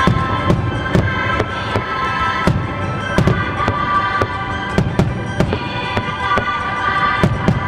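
Aerial fireworks shells bursting in quick succession, about two booms a second, over music played along with the display.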